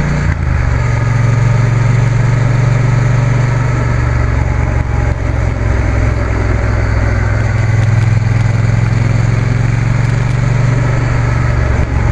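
Triumph T120 parallel-twin motorcycle engine running steadily at road speed, with a slight change in note about half a second in, over steady wind and road rush.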